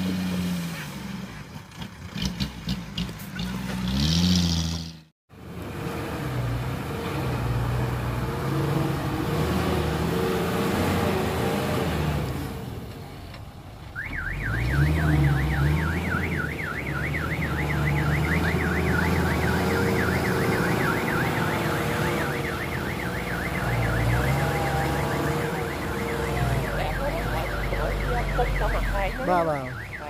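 Diesel dump truck engine running, its pitch rising and falling with the throttle. Partway through, a fast warbling electronic alarm starts up over the engine and keeps sounding until just before the end.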